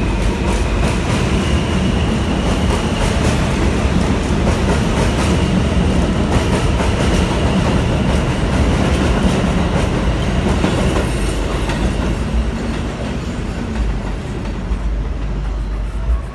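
R160 subway train pulling out of an elevated station and running past, its wheels clattering on the track over a dense rumble, with a steady high whine above. The sound eases off after about twelve seconds as the train leaves.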